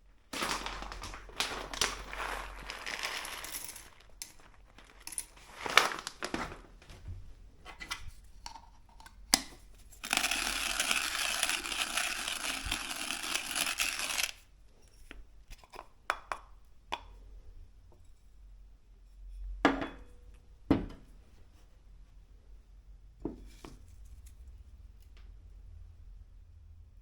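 Etzinger ETZ-I hand-cranked burr grinder crunching coffee beans, in a rough stretch at the start and a steady, denser stretch of about four seconds in the middle, with scattered clicks and knocks in between.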